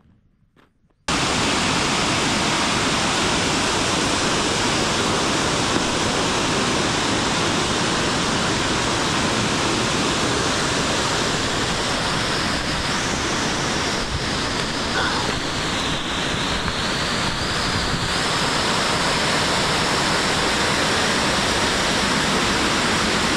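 Waterfall rushing close by: a loud, steady roar of falling water that cuts in abruptly about a second in.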